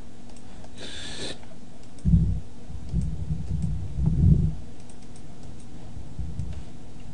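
Faint computer mouse and keyboard clicks at a desk, with a short hiss about a second in and a run of low thumps in the middle, the loudest sounds, over a steady low hum.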